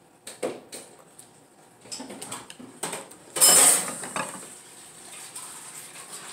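Handling noises at a dinner table: a plastic water bottle and food on a plastic plate being handled, a string of light clicks and knocks with one louder, longer rattle about three and a half seconds in.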